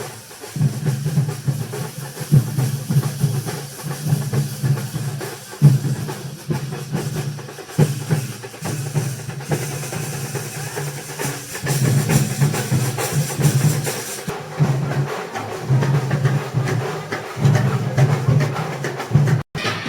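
Festival band drums, bass drum and snare beating a fast, dense rhythm, with band music over them. The sound cuts out briefly just before the end.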